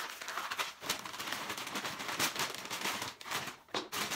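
Cardboard and paper crackling and rustling as cut carton pieces are handled and pushed into a paper shopping bag, in a string of quick crinkles and small knocks.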